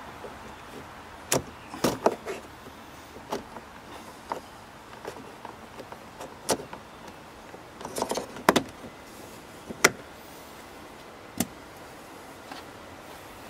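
Plastic trim covers on a 2010 Mazda3 door panel being pried and popped off: an irregular series of sharp plastic clicks and snaps, bunched around two seconds in and again around eight seconds.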